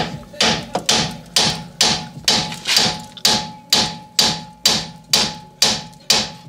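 Hammer striking the steel steering knuckle of a Mk3 Volkswagen Jetta in quick, steady blows, a little over two a second, each with a short metallic ring. The blows are driving the outer tie rod end's tapered stud out of the knuckle.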